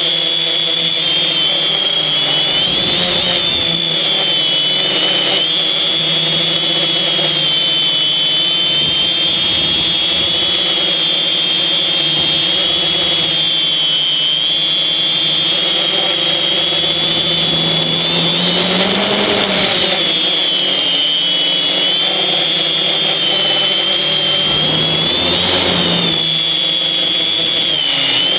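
Quadcopter's four electric motors and propellers whining, heard from the camera on board. The pitch wavers up and down with the throttle, rising clearly about two-thirds of the way through and again near the end.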